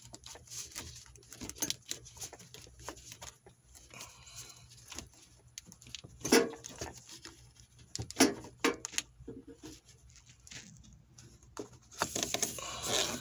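A gloved hand works a plastic electrical connector loose from the hybrid battery cooling-fan motor: scattered small clicks and knocks, with sharper clicks about six and eight seconds in and a rustling scrape near the end.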